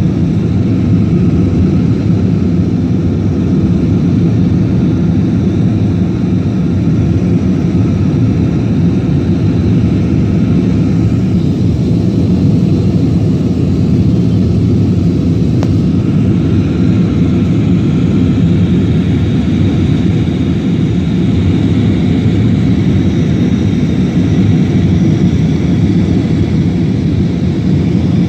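Jet airliner's engines and airflow heard from inside the passenger cabin during the climb after takeoff: a steady, loud rumble with faint steady higher tones over it.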